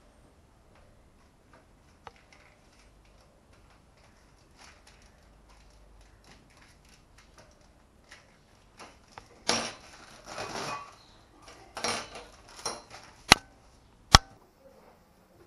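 Faint light clicks of a fork pressing and crimping the edges of puff-pastry squares on parchment paper. About ten seconds in, louder handling noise, then two sharp knocks of utensils on the counter near the end.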